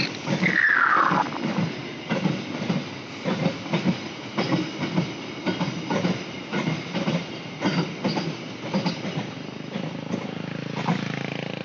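Passing train, its wagon wheels clattering over the rail joints in a repeated knocking, with a brief falling squeal about half a second in. Near the end the clatter gives way to a steadier hum.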